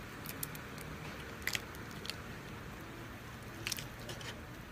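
A person eating: chewing and biting food, with a few sharp crunchy clicks, the loudest about a second and a half in and again near the end, over a steady low background hum.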